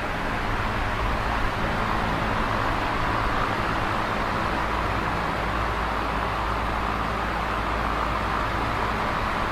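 Large box fan running steadily: a constant rushing whoosh of moving air with a low motor hum underneath.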